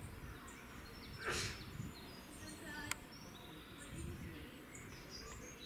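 Outdoor ambience of small birds chirping and twittering over a steady low rumble, with a brief falling whoosh about a second in and a sharp click near three seconds.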